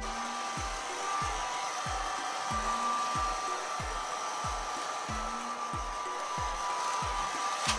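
Handheld hair dryer running steadily, a rushing hiss of air with a thin whine. Under it is background music with a regular low thump about every half second.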